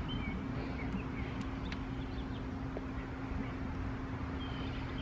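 Outdoor background noise with a steady low hum, and a few short bird chirps near the start and again near the end.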